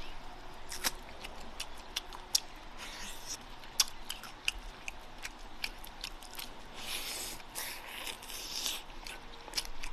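Close-up wet eating sounds from biting, sucking and chewing the sticky, gelatinous skin of a charcoal-grilled pig's trotter: many sharp lip smacks and wet clicks, with a stretch of breathy noise about seven seconds in.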